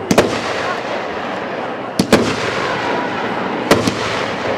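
A 12-shot consumer fireworks cake firing. Sharp bangs come in close pairs about every two seconds (near the start, about two seconds in, and near the end), with a steady hiss between them.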